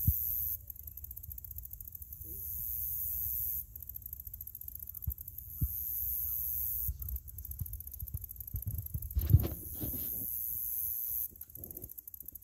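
Wind buffeting and handling noise on a phone microphone: a low, uneven rumble with scattered soft thumps and a louder knock about nine seconds in. A thin high hiss cuts in and out several times.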